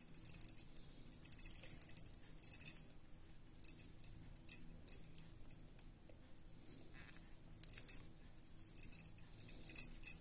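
Small kitchen knife scoring shallow cuts along a soya chaap stick: bursts of faint, crisp scratching clicks with short pauses between them.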